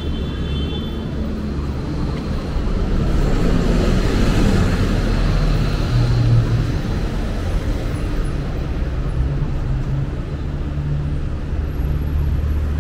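City street traffic: a steady rumble of cars and engines, getting louder about three seconds in as a vehicle passes close by, its sound falling in pitch as it goes.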